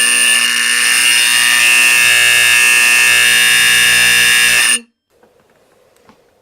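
Vintage fire alarm horn powered from a model train transformer, sounding one loud, steady blast of about five seconds that cuts off abruptly.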